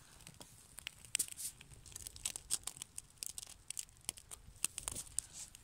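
A small twig and pine-needle fire crackling, with many irregular sharp snaps and pops as the kindling catches.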